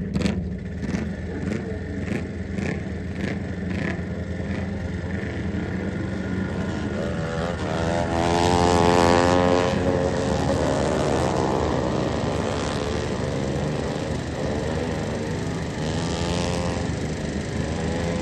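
Racing lawn mower engines running steadily. About halfway through, one passes close, getting louder with its pitch rising and then falling as it goes by. A run of clicks fades out in the first few seconds.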